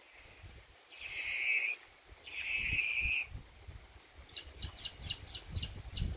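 Birds calling: two harsh, raspy calls of about a second each, then a quick run of about eight short, sharp downslurred notes near the end. A low wind rumble sits underneath.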